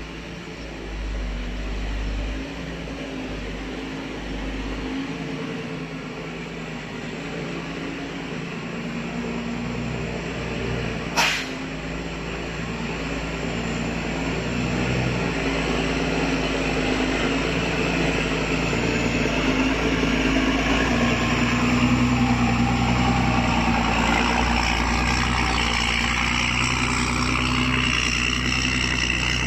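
Heavy vehicle engine running steadily, growing gradually louder through the second half, with a single sharp click about eleven seconds in.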